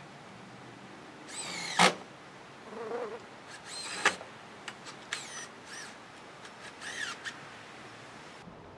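A cordless drill driving screws through sheet aluminum into the camper's wooden wall in several short bursts, its motor pitch sliding as the load changes, with a few sharp clicks, two of them loud.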